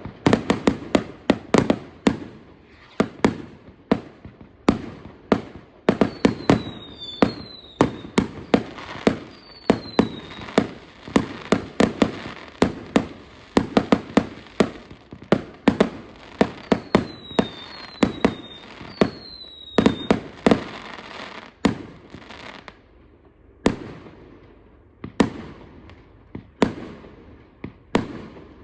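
Fireworks display: a rapid, dense string of loud bangs and crackles, with several short falling whistles. The bangs thin out to fewer, spaced reports in the last few seconds.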